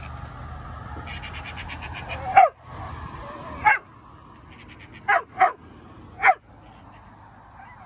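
Small dog barking up at a tree: five sharp barks, the first about two and a half seconds in, one a second later, then a quick pair and a last one a second after that.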